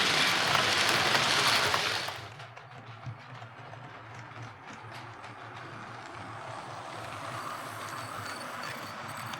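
Hornby OO gauge Merchant Navy model locomotive running on the track after a service, with fresh lubricant and a shimmed motor. A loud, even rushing sound for the first two seconds cuts off abruptly. After that the motor whirs quietly with light clicking from the wheels on the rails.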